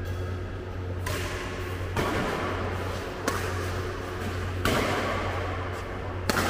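Badminton rally: racket strings striking the shuttlecock five times, about one hit every second or so, the last one sharp, over a steady low hum.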